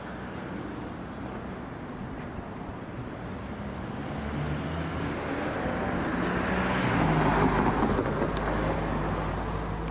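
A motor vehicle passing on the road beside the crossing, growing louder to a peak about seven seconds in and then fading.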